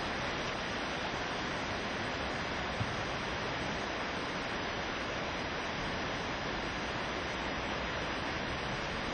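Swollen floodwater rushing past as a steady, even roar of water noise, with one brief bump about three seconds in.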